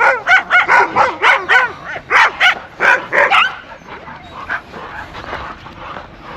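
Dogs barking and yelping in quick succession during a dog fight, dying down about three and a half seconds in.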